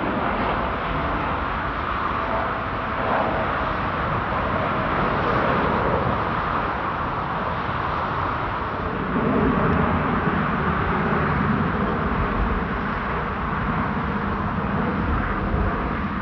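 Steady rushing noise of airliner jet engines, with a deeper rumble strengthening about nine seconds in.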